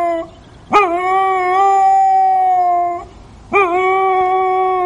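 A dog howling: a howl ends just after the start, then two long howls follow, each opening with a quick upward swoop and then held on one steady note for about two and a half seconds.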